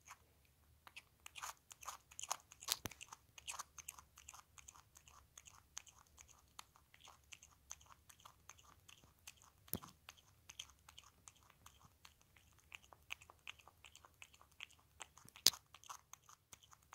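Ringtail possum crunching and chewing cucumber: a quick run of small crisp crunches, with a few sharper cracks, the loudest near the end.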